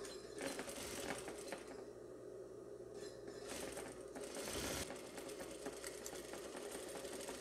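Sewing machine stitching a seam in short runs, louder twice.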